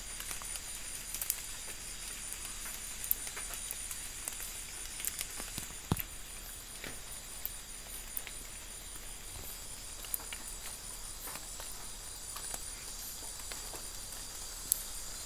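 A night insect chorus of crickets or katydids shrilling steadily at several high pitches, with scattered light clicks and knocks over it. The loudest knock comes about six seconds in.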